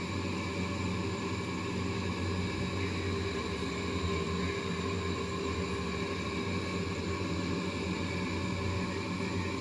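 A steady hum with several held tones over a light hiss.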